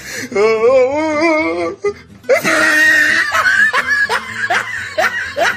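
Goats bleating in one long, quavering call. From about two seconds in, laughter over music follows, in short repeated rising bursts.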